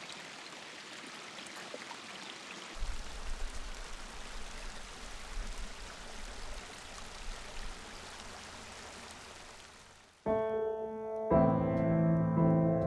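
Shallow creek water running over rock ledges, a steady hiss with a low rumble joining about three seconds in. It fades out near the end, and piano music begins.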